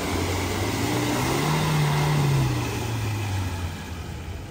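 Off-road SUV's engine revving up to a peak about two seconds in, then easing back off, as it works over rough ground.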